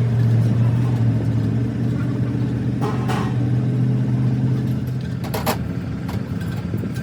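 An engine running steadily with an even, deep hum, easing slightly about five seconds in. A few short knocks ring out over it, one about three seconds in and a couple more near five and a half seconds.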